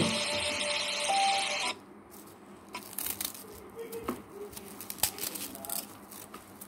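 A loud hissing sound with a steady tone in it for the first second and a half, cutting off abruptly. Then soft, scattered clicks and crisp crunches of a small knife slicing through napa cabbage leaves.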